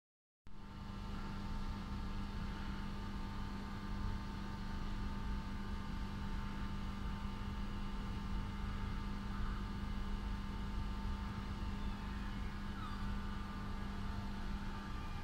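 Double-deck electric train standing at the platform, its onboard equipment giving a steady hum with several high, steady whining tones. The sound cuts in abruptly about half a second in.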